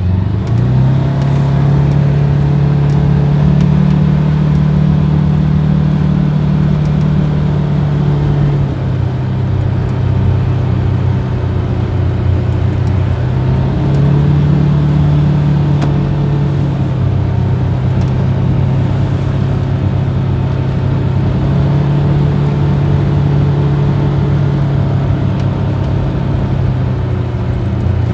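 Motor vehicle engine running while under way, with road and wind noise. The engine note steps down and back up in pitch several times as the speed changes.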